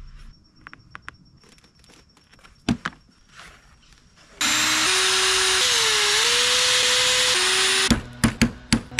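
A Ryobi corded power drill runs for about three and a half seconds, its pitch stepping up and bending as it works. Then a ball-peen hammer starts striking rapidly and evenly, about three or four blows a second, setting rivets in a leather sheath.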